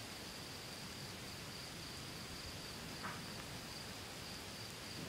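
Crickets trilling steadily at night over a soft hiss of light rain, with one faint tick about three seconds in.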